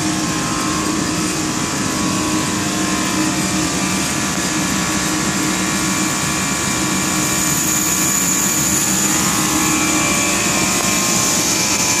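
Refrigeration skid with scroll compressors running: a steady machine hum with a constant high hiss, unchanging throughout.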